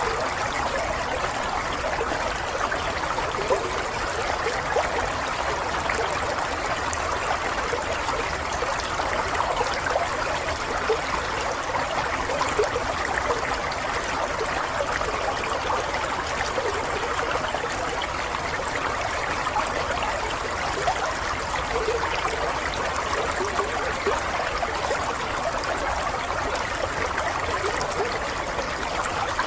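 Water running steadily, a constant babbling rush with many small splashes and no pauses.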